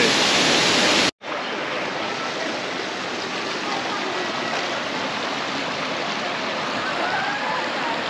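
Loud rushing of a waterfall, cut off abruptly about a second in, followed by the steady, quieter rush of a shallow river running over rocks and small rapids.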